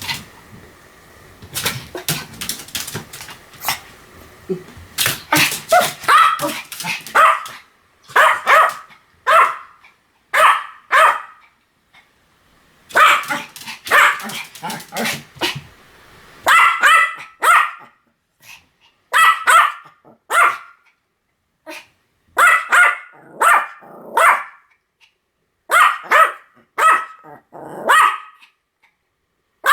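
Pomeranian barking over and over, in quick runs of a few barks each with short pauses between, louder from about five seconds in.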